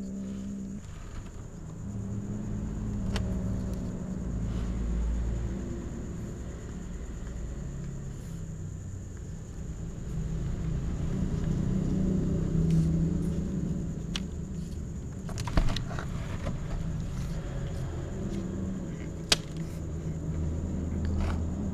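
Kitten growling low and almost without pause while eating fish, guarding its food from the other cat. Two sharp clicks come in the second half.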